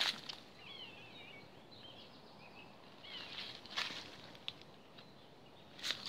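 Quiet woodland background with a faint, wavering bird song about a second in. Footsteps and brushing through leafy undergrowth come at the start and again about three seconds in.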